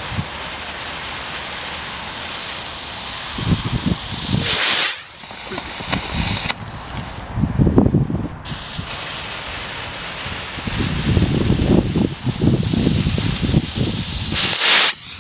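Firework rockets hissing in flight, a loud rushing hiss that breaks off and starts again abruptly several times, with a low rumble underneath.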